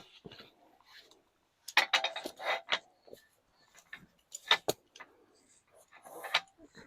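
Clicks and light metal clatter of folding camp-table parts being fitted together: a short run of rattling about two seconds in, then sharp clicks near the middle and again near the end.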